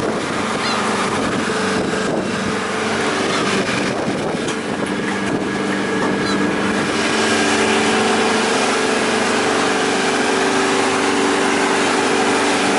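Fishing boat's engine running steadily under way, with rushing water and wind. The engine note gets a little louder and steadier about seven seconds in.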